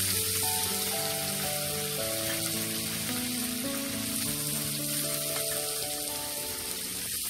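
Grated broccoli frying in hot oil in a pan, a steady sizzle, under background music of sustained notes changing about twice a second.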